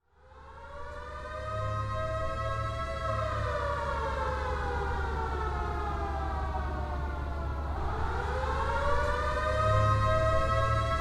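Siren wailing up from silence, sliding slowly down, then winding up again about eight seconds in, over a steady low hum.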